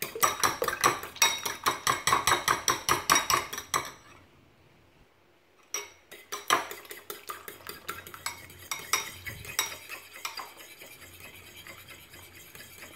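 Metal fork whisking raw eggs in a ceramic bowl, its tines clicking rapidly and evenly against the bowl. The clicking stops about four seconds in, then resumes more softly.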